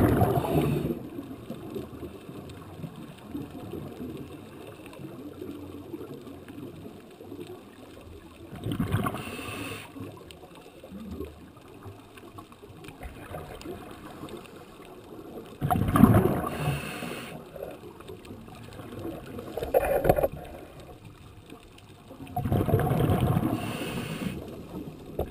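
Scuba regulator breathing underwater: five gurgling surges of exhaled bubbles, each a second or two long and several seconds apart, with a low water hiss between them.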